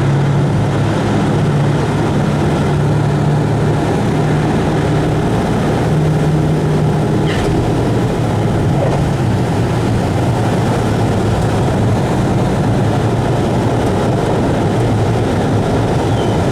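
Cabin noise inside a Douglas C-47 Skytrain: its two Pratt & Whitney R-1830 radial engines and propellers running at a steady, even drone over a dense rumble.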